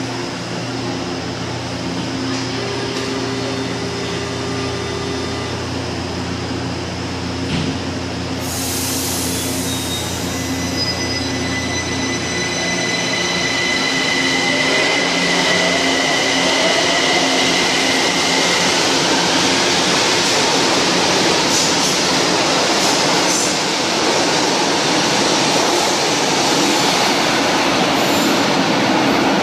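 São Paulo Metro J-fleet electric train pulling out of an underground station. A steady hum while it stands is followed by a sudden hiss about eight seconds in, then a rising motor whine as it accelerates, which grows into the noise of the train running along the track into the tunnel.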